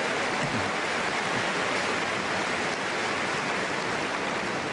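Large stadium crowd applauding after a winning point, a dense steady clapping that eases off slightly near the end.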